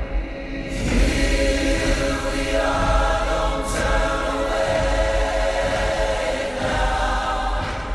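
Dance music with a choir singing long held notes, swelling in about a second in and then holding steady, with a brief bright hiss near the middle.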